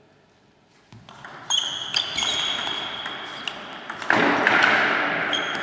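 Table tennis rally: sharp clicks of the ball on bats and table starting about a second in, with ringing pings. A louder, longer burst of noise comes about four seconds in.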